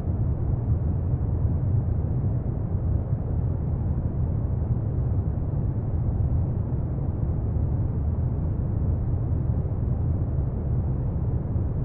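Steady deep rumbling noise, like brown noise, even and unchanging, with no oud or other music audible.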